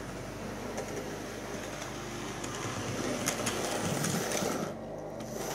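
Model A4 Pacific locomotive running on the layout's track, its electric motor humming and its wheels clicking over rail joints and pointwork, loudest as it passes close by about three to four seconds in.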